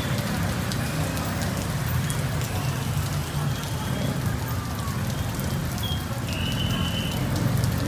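Heavy rain falling on a wet street, a steady hiss with many close drop hits over a constant low rumble. A brief high tone sounds about six seconds in.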